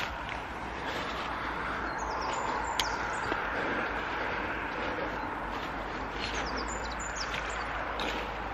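Outdoor background of steady road-traffic hum, with footsteps swishing through long grass and undergrowth and a few short bird chirps; a single sharp click near the three-second mark.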